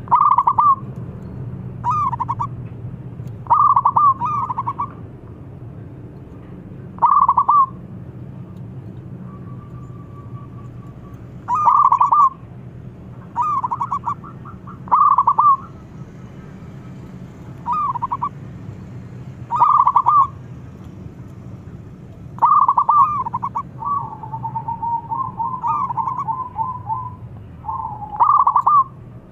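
Zebra dove (perkutut) cooing: short rolling phrases of rapid staccato notes, repeated about every two seconds, with a longer unbroken run of quick notes near the end. A steady low hum lies under the calls.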